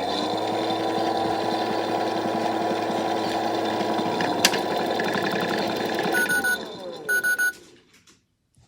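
Toy washing machine's small electric motor running the drum steadily with a rattling hum and a single click partway through. About six seconds in, two short beeps sound as the motor winds down with a falling pitch, the end of the hand wash cycle.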